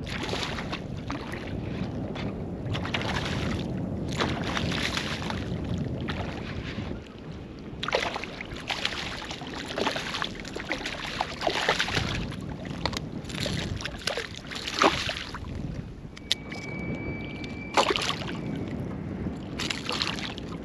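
Hooked redfish splashing and thrashing at the water's surface as it is reeled in, with several sharp splashes in the second half, over steady wind noise on the microphone.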